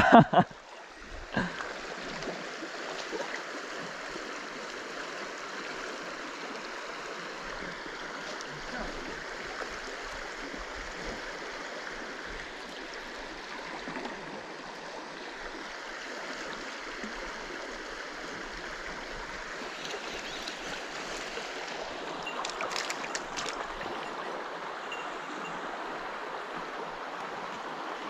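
Shallow stream running over a stony bed: a steady rush of water.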